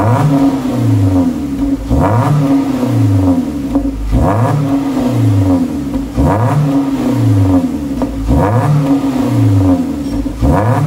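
Perodua Myvi with a freshly fitted Max Racing full-system exhaust, revved in repeated throttle blips from idle, about one every two seconds. Each rev rises and falls back, with an aggressive rumbling exhaust note.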